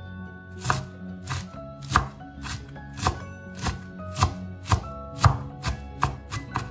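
Knife chopping shredded cabbage on a wooden cutting board: about a dozen sharp, even strokes, roughly two a second, starting about half a second in.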